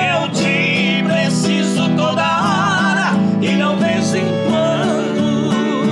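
Live country (sertanejo) music in an instrumental break between sung lines: an acoustic guitar strumming chords while a piano accordion plays a wavering melody.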